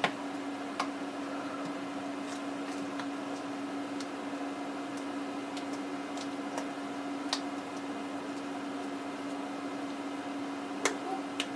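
A steady low hum with faint scattered clicks and taps, about half a dozen, from small plastic phone parts being handled and pressed into place.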